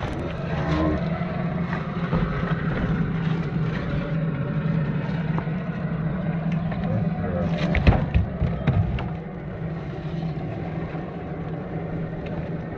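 Electric motor and gearbox of an RC scale crawler running steadily at low speed, a constant hum, with a few sharp knocks about eight seconds in.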